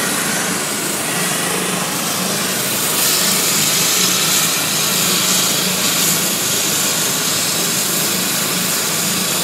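Air-ambulance helicopter running on the ground with its rotor turning: steady turbine whine and rotor noise. It grows a little louder and higher-pitched about three seconds in.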